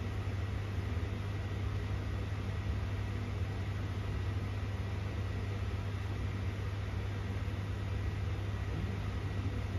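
A steady, unchanging low mechanical hum with an even hiss and a faint high steady whine over it.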